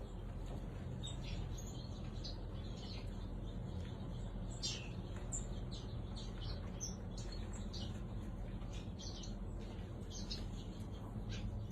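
A mixed group of small cage birds chirping, many short overlapping chirps scattered through, over a steady low hum.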